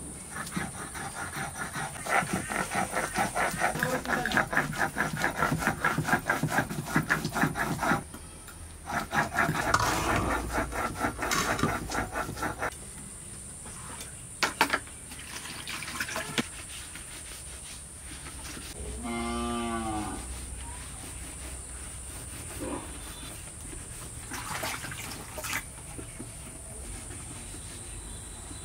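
Stone roller scraping back and forth on a flat grinding stone (shil-nora) as mustard seed is ground to paste, in rapid rhythmic strokes: a long spell, a short pause, a second spell, then a few stone knocks. A cow moos once, briefly, about two-thirds of the way through.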